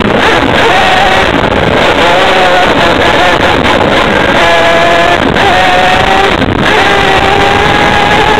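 A small engine running close to the microphone, loud and distorted, its pitch shifting up and down in steps, under a constant rattle and rush of noise.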